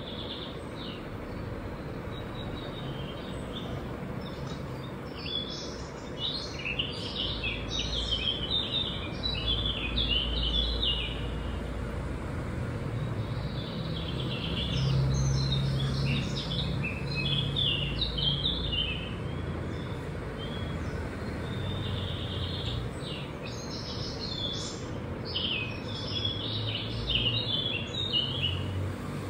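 Birds singing in three bouts of rapid chirps, each a few seconds long, over a steady background hiss and a low rumble.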